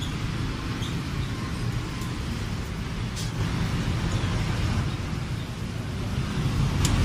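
Steady low background rumble of road traffic, with a couple of faint short clicks.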